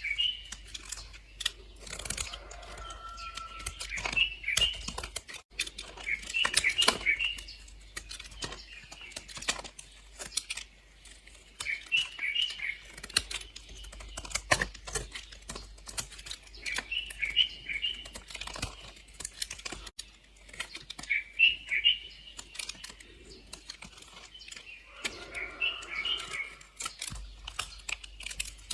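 Knife blade slicing through bars of soap: quick crisp, crunchy clicks and crackles that come in runs, with short pauses between cuts.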